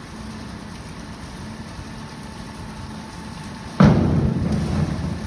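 Steady hum of a large hall, then about four seconds in a sudden loud bang from a diving springboard as the diver takes off, its echo dying away over the next second or so.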